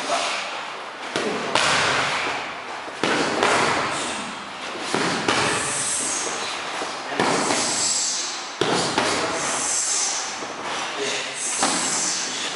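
Boxing gloves punching focus mitts: sharp slaps about every one to two seconds, each trailing off in an echo.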